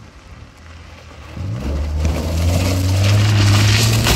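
A vehicle engine picks up about a second and a half in, rising in pitch, then runs steadily under throttle with a hiss over it.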